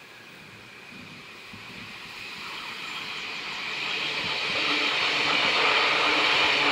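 CFL Stadler KISS double-deck electric multiple unit approaching and passing close, its wheel and rail noise growing steadily louder.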